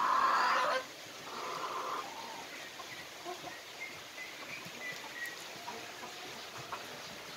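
Young Gilan chickens calling and clucking: a loud call right at the start and a second one about a second in, then scattered softer clucks and short calls.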